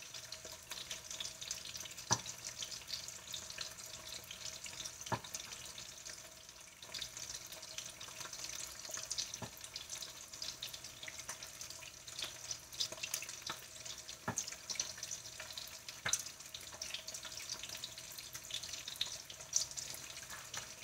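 Slices of Spam frying in oil in a frying pan: a steady sizzle with fine crackling. A sharp knock of a knife on a cutting board cuts through it every few seconds, five times in all, the loudest about two seconds in.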